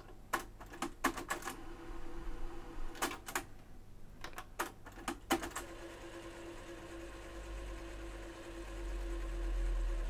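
Pioneer CT-P720WR cassette deck transport, freshly fitted with new drive belts, clicking and clunking several times as it is worked, then running with a steady hum from about halfway through.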